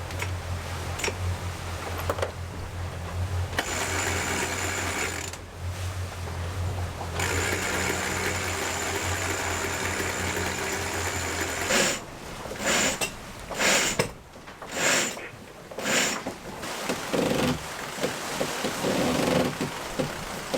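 Electric sail winch motor whirring steadily under load, stopping about twelve seconds in; after it come several irregular loud bursts of noise.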